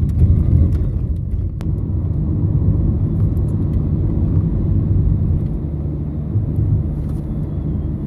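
Car driving, heard from inside its cabin: a steady low rumble of engine and tyre noise, with one sharp click about a second and a half in.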